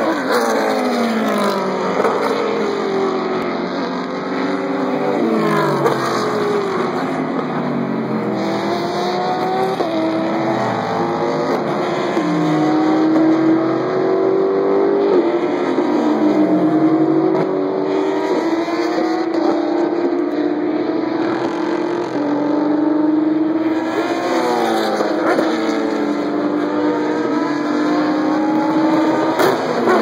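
Endurance race cars' engines at full throttle passing one after another, each engine note dropping in pitch as the car goes by. Between passes the engines of other cars around the circuit run on continuously, with one note held for several seconds in the middle.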